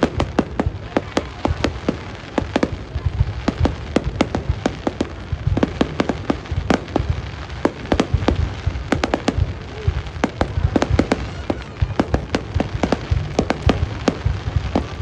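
Fireworks display: shells bursting in quick, irregular succession, several sharp bangs a second over a continuous low rumble.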